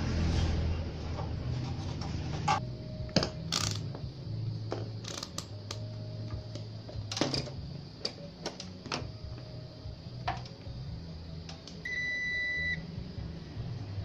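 Scattered clicks and knocks as a TV circuit board and a digital multimeter are handled, over a steady low hum. About twelve seconds in, the digital multimeter gives one high beep lasting almost a second.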